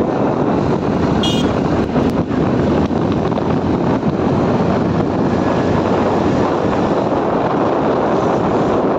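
Motorcycle riding at speed, with steady wind noise on the microphone over the engine and road noise. A brief high-pitched tone sounds about a second in.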